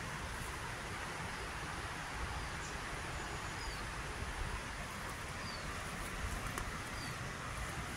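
A shallow river rippling over a stony bed: a steady rushing hiss, with wind rumbling on the microphone. A small bird gives a few short, falling chirps.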